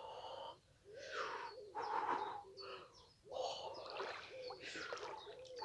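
A man gasping and huffing in two long breathy bursts, from the shock of cold pool water.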